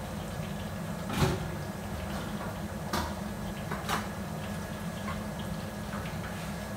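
Kitchen room sound: a steady low hum with a few short knocks and clatters of things being set down or handled, the loudest about a second in and two smaller ones a couple of seconds later.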